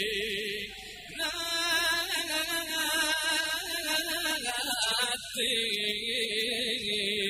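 Unaccompanied voices singing a Javanese syi'ir devotional chant (sholawat) in long, wavering held notes. A brighter, more ornamented vocal line comes in about a second in and drops out about five seconds in.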